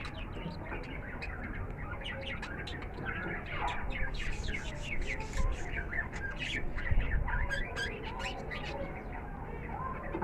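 Zebra finches chirping: many short calls overlapping, busiest in the middle.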